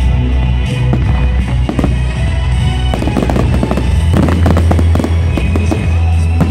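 Aerial fireworks bursting and crackling over music, with a dense run of bangs about halfway through.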